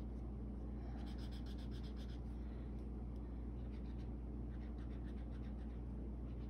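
Crayola felt-tip marker dabbing short leaf strokes on paper: a quick run of scratchy strokes about a second in, then fainter scattered dabs.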